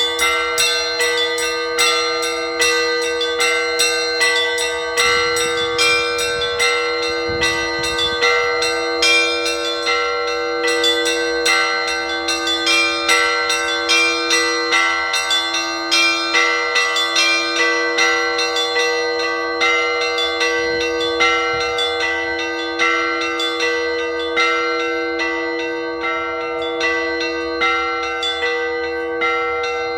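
Church bells rung in an Orthodox peal (zvon): a quick, continuous pattern of strikes on several small high bells over a lower bell struck about once a second, all ringing into one another.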